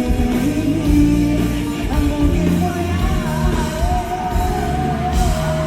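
Live rock band playing with drums, bass and guitars, and singing over it.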